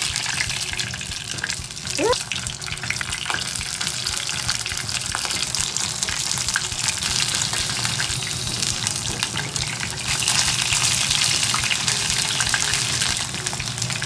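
Karaage chicken pieces deep-frying in oil heated to about 200°C for the second fry, a steady sizzle with scattered pops and crackles. A short rising squeak about two seconds in.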